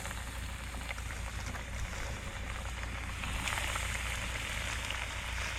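Hot cooking oil sizzling and crackling as bluegill fillets fry, getting louder about three seconds in, over a low steady hum.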